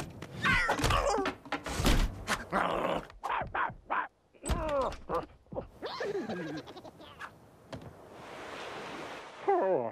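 Cartoon slapstick sound effects: a quick run of thuds and knocks, then animal cries that slide down in pitch, once in the middle and again near the end.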